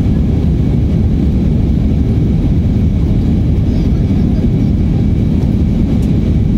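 Steady low rumble inside the cabin of an Airbus A319 climbing after takeoff: engine and airflow noise.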